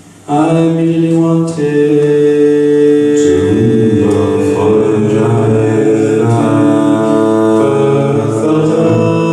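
Live experimental vocal performance: a voice sung into a microphone in long held, chant-like notes, layered with other held tones into a dense drone-like chord whose notes shift every second or so. It starts abruptly just after a brief quiet moment.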